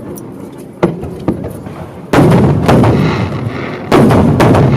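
Fireworks shells exploding: two sharp bangs about a second in, then two heavy blasts, about two and four seconds in, each echoing on for over a second.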